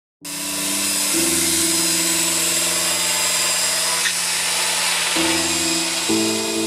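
Intro music of held chords that change abruptly three times, under a loud steady hiss.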